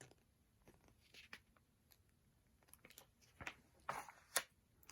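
Near silence: quiet room tone with scattered faint clicks, a few slightly louder ones a little past the middle.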